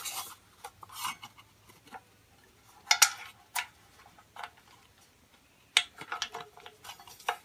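Scattered light metallic clicks and taps from handling ceiling fan hardware: the down rod and its cross pin being fitted into the fan motor's coupling.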